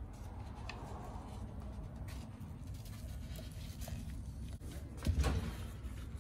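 Small handling sounds of gloved hands picking an old O-ring off an oil filter canister with a pick and handling a plastic parts bag, over a low steady hum. A louder single bump comes about five seconds in.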